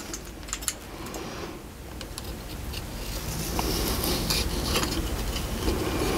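A metal knife working against a clay plate to lift a thin slip transfer off it: a few light clicks and taps at first, then a soft scraping that grows a little louder from about halfway through.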